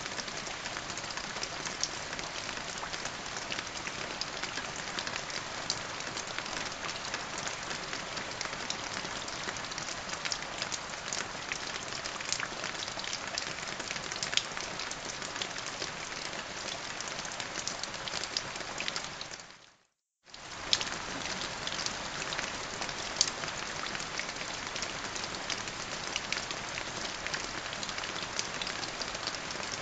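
Steady rain falling: an even hiss dotted with many small drop ticks. About twenty seconds in it fades out to silence for about half a second, then fades back in.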